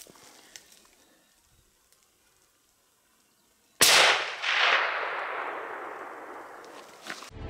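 A single rifle shot about four seconds in, sudden and loud, followed by its echo rolling away and fading over about three seconds. Before the shot there is near silence.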